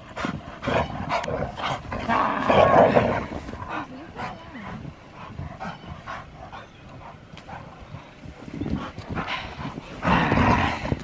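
Dogs making playful noises while romping in deep snow, loudest about two seconds in and again near the end, over short crunching steps through the snow.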